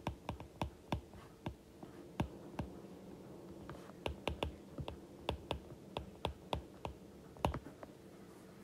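Stylus tapping and clicking against a tablet's glass screen during handwriting: a quick, irregular run of small clicks with a pause of about a second a little before the middle and one louder click near the end.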